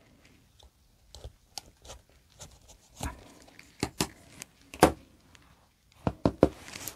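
Handling sounds from cutting a starfish snake plant leaf with a snap-off utility knife: a scattering of sharp clicks and light knocks, with three quick ones close together near the end.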